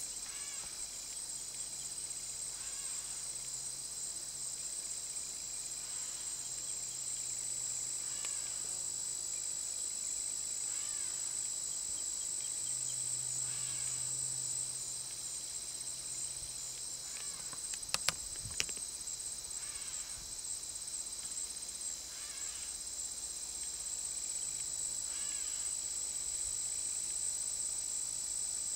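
Steady, high-pitched chorus of crickets and other insects, with a fainter sound repeating every two to three seconds. Two or three sharp clicks about two-thirds of the way through.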